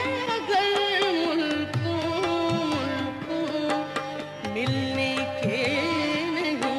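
Background music in a South Asian style: a melody with sliding, wavering ornamented notes over repeated low drum strokes.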